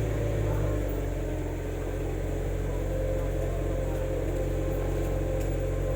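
Honda BR-V's 1.5-litre four-cylinder engine idling steadily through an aftermarket round-type Jazma muffler, with a deep, even exhaust hum. The idle is still somewhat raised, the engine having just been started cold.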